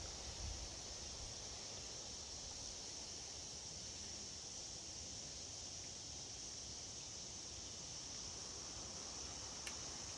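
Steady, high-pitched chorus of insects, faint and unbroken, with a single tiny click near the end.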